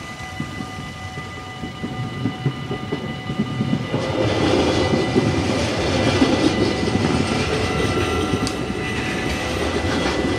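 Level-crossing bells ring with a steady tone while Stadler GTW-E electric trains pass over the crossing. The rumble of wheels on rail rises about four seconds in and stays loud as two trains pass from opposite directions.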